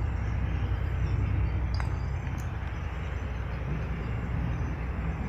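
Toyota Yaris VVT-i four-cylinder petrol engine idling steadily, now running on a new ignition coil for cylinder 4 and a fresh set of spark plugs after a misfire.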